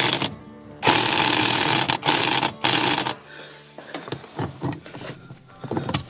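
Corded electric impact wrench hammering on a rounded seat-belt bolt through an impact bolt-extractor socket: a short burst, a brief pause, then a longer run that stops about three seconds in. Light clicks and knocks follow as the tool and socket are handled.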